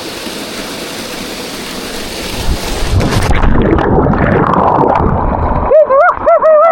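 Steady rushing noise of water and wind on the microphone, growing louder about two and a half seconds in before the sound turns muffled. Near the end a person's voice calls out in short wavering cries.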